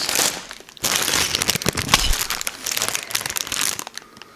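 Sealed Lego parts bags crinkling and rustling as they are handled and sorted, with a sharp knock about two seconds in as one is set down.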